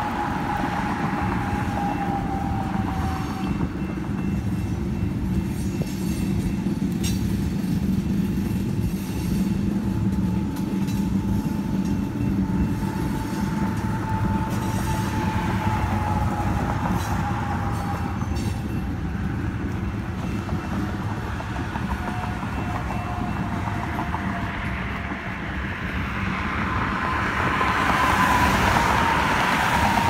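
Union Pacific coal hopper cars rolling past in a steady rumble of wheels on rail, with a few sharp clicks. A thin steel wheel squeal drifts slowly down in pitch and fades in and out several times.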